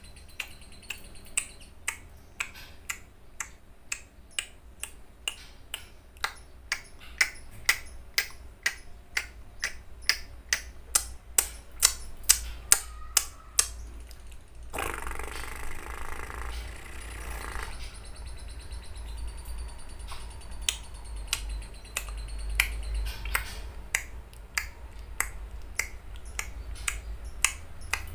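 Lovebird making repeated sharp ticking calls, about two to three a second, with a harsh chattering burst lasting about three seconds in the middle.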